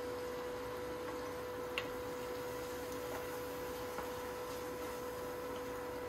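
Portable induction cooktop humming with a steady tone while ground meat is stirred in a ceramic saucepan, a wooden spoon clicking faintly against the pot a few times.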